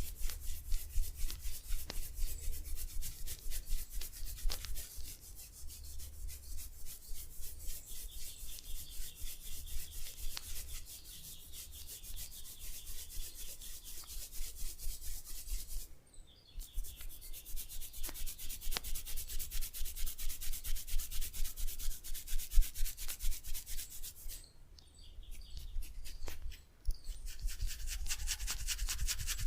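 Massage strokes rubbing over skin in a quick, even rhythm of about two or three strokes a second, with two brief pauses.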